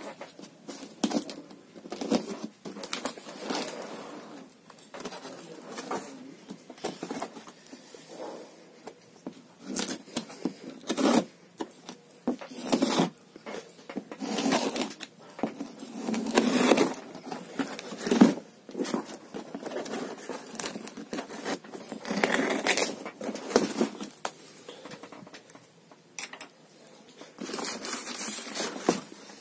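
Cardboard shipping box being opened by hand: scissors cutting along the packing tape and the cardboard flaps scraping and rustling as they are pulled open, in irregular bursts with sharp louder scrapes.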